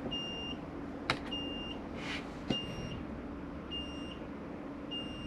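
Newly assembled desktop computer beeping after its first power-on: one short, high beep about every second and a quarter, five in all. Two sharp clicks fall between the beeps, about one and two and a half seconds in, over a faint steady hum.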